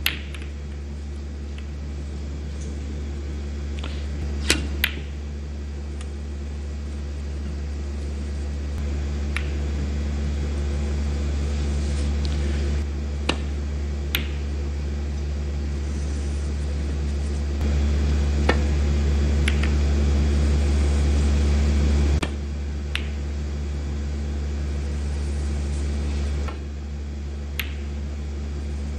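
Snooker balls clicking: about ten short, sharp clicks spread irregularly as the cue strikes the cue ball and balls hit each other. A steady low hum runs underneath and is the loudest thing.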